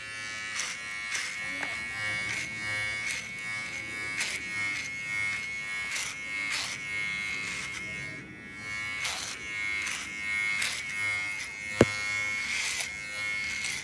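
Electric hair clippers buzzing steadily, with short rasping bursts about twice a second as the blades cut through hair. A single sharp click about twelve seconds in.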